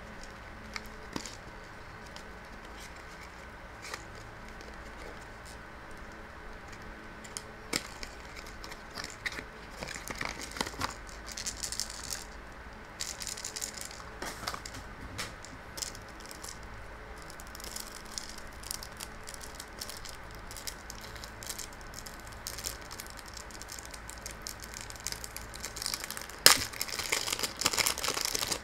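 A small cardboard puzzle box handled and opened, with scattered clicks and scrapes. Near the end comes louder crinkling and tearing of the thin plastic wrap around a twisty puzzle cube.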